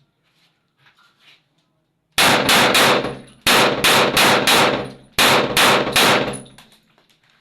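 Gunfire in three rapid bursts of about five shots each, the bursts a little over a second apart, each shot with a ringing tail.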